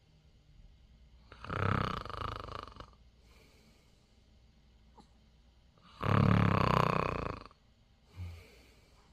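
Eight-day-old newborn baby snoring in its sleep: two long, loud, rasping snoring breaths and a short one near the end, with quiet breathing between.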